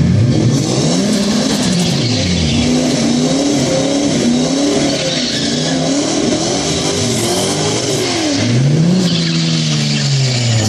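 Single-turbo Toyota Supra MK4's inline-six engine revving up and down again and again, with a longer climb in revs near the end. The tyres are not spun: no burnout.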